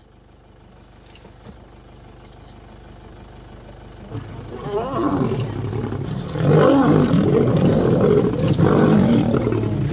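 Male lions fighting and growling. The sound starts faint, swells from about four seconds in, and is loudest over the last few seconds.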